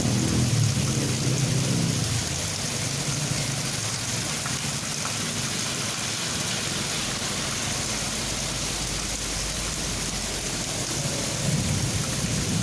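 Heavy rain falling steadily as an even hiss, with a low rumble in the first two seconds and again near the end.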